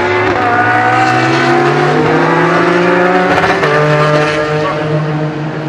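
Several race car engines at full throttle accelerating through the corner at close range, their notes overlapping and rising in pitch. About three and a half seconds in, one engine's note drops sharply at an upshift and then climbs again.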